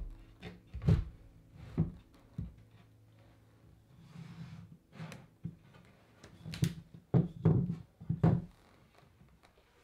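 MDF shelving panel knocking and bumping against a pine base frame as it is set into place by hand: a series of dull thunks, several close together in the second half, with a brief scrape in the middle.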